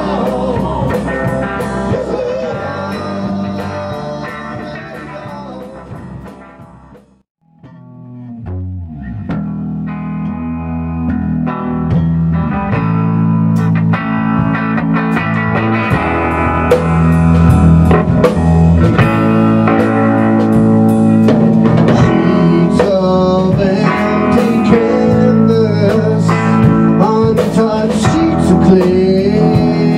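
Live rock band of electric bass, electric guitar and drum kit playing, with some singing early on. The music dies away to almost nothing about seven seconds in. Then the guitar plays a few notes that glide in pitch, and the bass and drums come in, back to the full band at full loudness by about twelve seconds.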